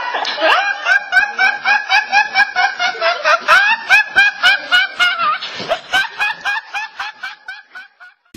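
A young man laughing uncontrollably in a high-pitched, squeaky laugh, about four or five short bursts a second, fading away near the end.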